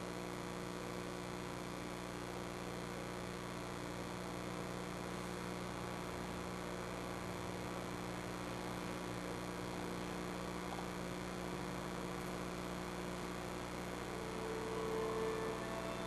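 Steady electrical mains hum with hiss. Near the end, a single held tone comes in briefly.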